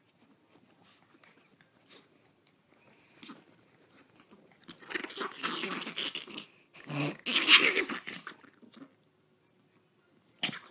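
Two small dogs, a Chihuahua and a rat terrier, play-fighting: harsh snarling and snapping of teeth in two loud stretches from about five to nine seconds in, with only faint rustling before.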